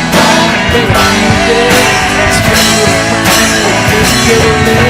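Live country-rock band playing between sung lines, with a lead line that slides in pitch over guitar, bass and drum kit.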